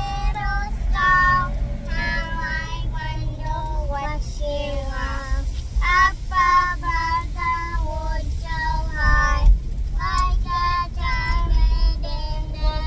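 A young child singing a song inside a moving car's cabin, over the car's steady low road and engine rumble.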